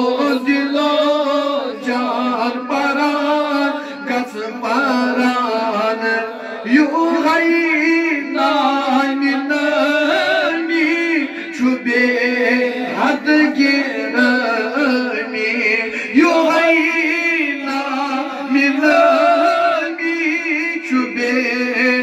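Two men singing a Kashmiri naat, an Islamic devotional song. The lead voice winds through long ornamented phrases with a wavering vibrato over a steady held low note.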